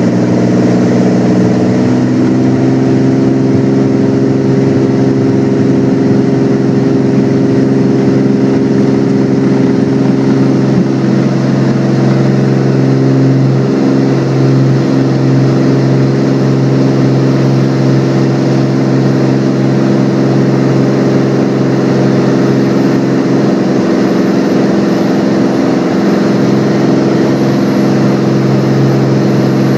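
Cirrus SR22's six-cylinder Continental engine and propeller running at takeoff power through the takeoff roll and climb-out, heard from inside the cabin. The engine note steps up slightly about two seconds in, then holds steady.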